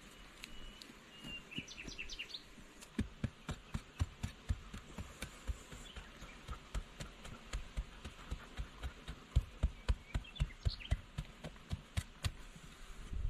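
A bird chirps a few times in the first two seconds, then a steady run of low thuds sets in, about two or three a second.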